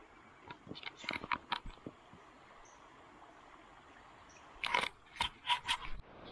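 Two short runs of sharp clicks and knocks, one about a second in and one near the end, over faint steady hiss.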